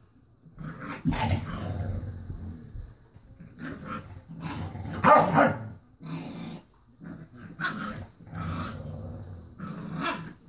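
A dog growling and grumbling in a string of about eight vocal bursts, some short and some drawn out, the loudest about five seconds in.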